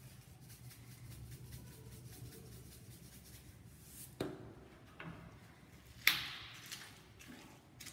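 Stone pestle knocking and grinding garlic cloves in a volcanic-stone molcajete, with the loudest strike about six seconds in. Before it come a couple of lighter knocks as a seasoning container is set down on the stone counter. A faint steady hum runs underneath.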